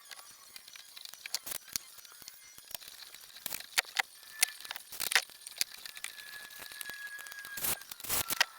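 Irregular sharp clicks, knocks and rattles of hard objects being handled, with a faint thin squeak held for a few seconds in the middle.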